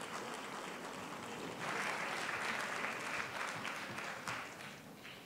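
Audience applauding, swelling about a second and a half in, then dying away near the end.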